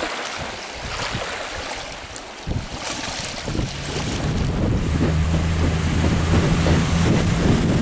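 Wind buffeting the microphone over choppy lake water. From about three and a half seconds in, a Yamaha outboard motor runs steadily as the boat moves under way.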